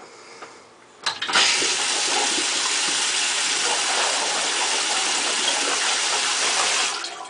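Water rushing out of a toilet's plumbing in a strong, steady stream, starting suddenly about a second in and stopping near the end.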